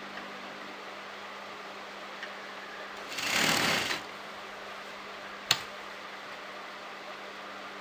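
Sewing machine stitching lace trim onto fabric in one short run of about a second near the middle, which stops abruptly. A steady low hum lies under it, and a single sharp click comes a little after the run.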